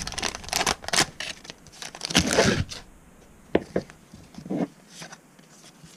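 Foil Pokémon booster pack wrapper crinkling and being torn open, with the loudest rip about two seconds in. After that it goes quieter, with a few short light taps as the stack of cards is handled.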